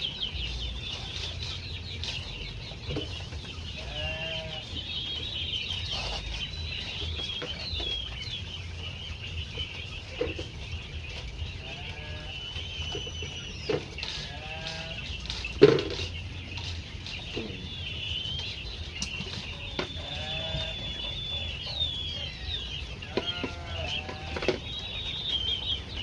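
A flock of caged quail chirping continuously in high twittering calls. Lower warbling calls come now and then, with occasional sharp knocks, the loudest about two-thirds of the way through.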